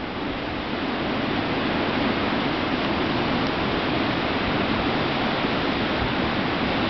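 Steady, even rushing of sea wind and distant breaking surf, with no distinct wave crashes standing out.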